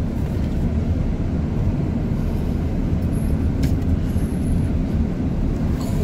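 Steady low rumble of engine and road noise inside a vehicle's cab as it drives along.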